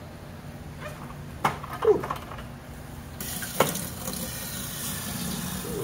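Wet aquarium gravel poured from a plastic bucket into an empty glass tank. A few knocks come first, then from about three seconds in a steady hissing patter as the gravel and water stream onto the glass bottom.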